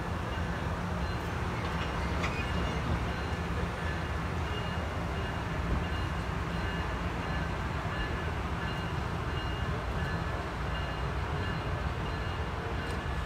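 Amtrak Pacific Surfliner bi-level passenger train moving slowly along the platform: a steady low rumble with a few faint steady high tones above it.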